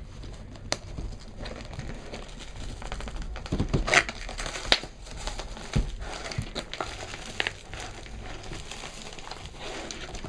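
Packaging crinkling and rustling as it is handled and unwrapped by hand, with irregular sharp crackles; the loudest come about four seconds in and again just before five seconds.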